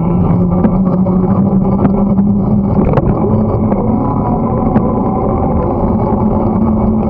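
Steady rumble of a bicycle being ridden on a cleared winter path, heard through the bike-mounted camera: tyre and frame noise with a low, even hum over it.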